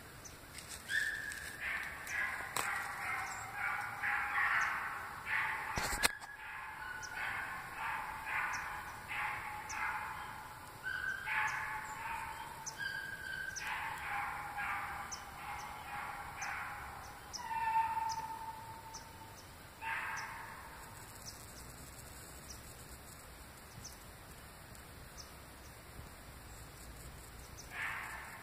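Young rabbit dogs giving voice while running a marsh rabbit on its scent: a steady run of short, repeated barks and bays from several dogs, dying away about two-thirds of the way through. One sharp knock about six seconds in.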